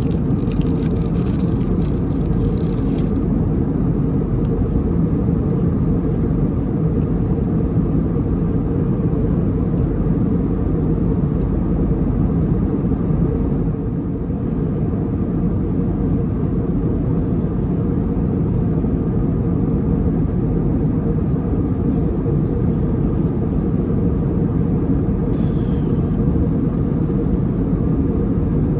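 Steady cabin noise of an Airbus A321neo in cruise: an even low rumble of engines and airflow, heard from inside the cabin.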